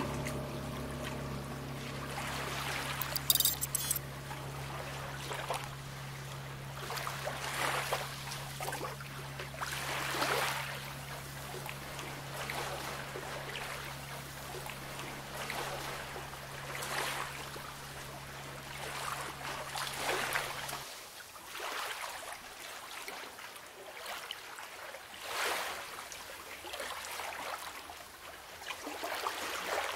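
Small waves of a calm sea lapping, a soft wash rising and falling every couple of seconds. Under it a low steady hum runs until about two-thirds of the way through, then cuts off suddenly.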